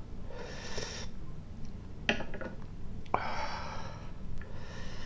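A man breathes hard through his mouth in three hissing breaths, one near the start, one about three seconds in and one near the end, with two sharp clicks between them. He is panting against the burn of Carolina Reaper pepper in his mouth.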